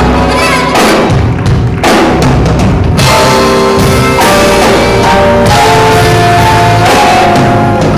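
Live band playing: a DW drum kit with dense fills and cymbal crashes, then an alto saxophone holding long notes over the drums from about three seconds in, with electric bass underneath.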